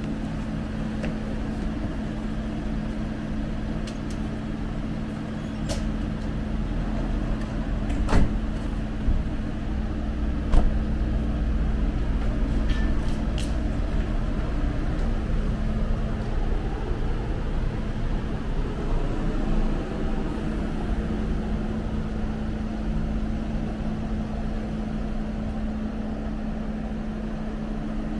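Ambulance idling steadily with a constant low hum, and two sharp door thuds about eight and ten seconds in.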